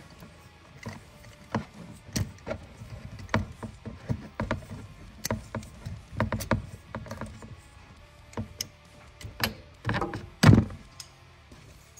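Ratchet and long socket extension working the crankshaft position sensor's bolt: scattered metal clicks and knocks, some in quick runs, with the loudest knock about ten and a half seconds in.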